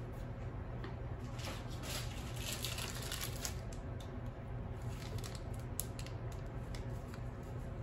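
Small handling noises of cake-decorating work: light scrapes, taps and rustles of tools and buttercream, busiest a couple of seconds in, over a steady low hum of bakery room noise.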